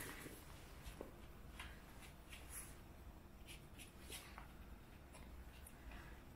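Faint, scattered small clicks and scrapes of cats and kittens eating wet food from plastic plates.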